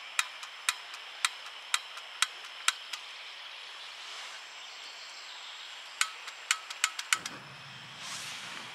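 Sharp clicks from a portable butane cassette stove and its cookpot being handled: about two a second at first, then a quicker cluster a few seconds later, followed by low knocks as the pot is moved.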